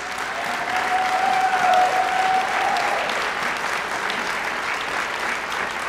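Audience clapping steadily in a large hall, with one voice in the crowd holding a single long call through the first half.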